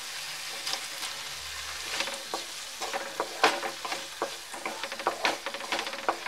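Onion-tomato masala frying with a soft sizzle in a non-stick pan as paneer cubes are tipped in, then a wooden spatula stirring and scraping against the pan in quick, irregular strokes from about two seconds in.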